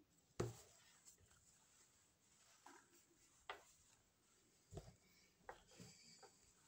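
Faint handling noises of a pen and a sheet of drawing paper on a wooden table: a few short, soft knocks and clicks, the loudest about half a second in.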